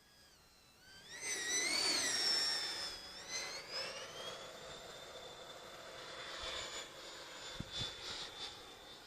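Electric ducted fan of a large 3D-printed Mir-25 Boxfat RC jet whining as it flies past. The whine rises and swells over the first couple of seconds and dips in pitch as the jet passes. It then settles into a steady high whine that slowly fades, with a few low thumps near the end.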